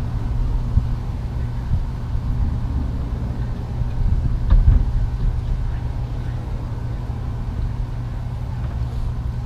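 Steady low rumble of outdoor background noise, with nothing sudden standing out.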